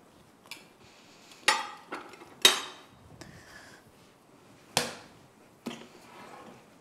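Kitchen clatter: a handful of separate sharp knocks and clinks of dishes or utensils, spaced irregularly, the loudest about two and a half seconds in.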